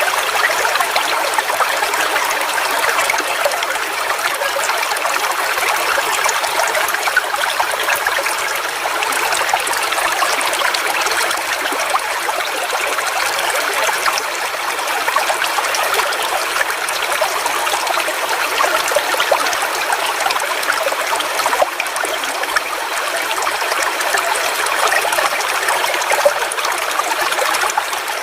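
Forest waterfall: water splashing and flowing steadily, a constant hiss with little deep rumble.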